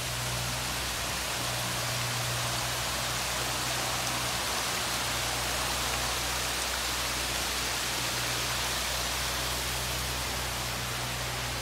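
Water from a tiered fountain splashing steadily into its pool, an even hiss, with a steady low hum underneath.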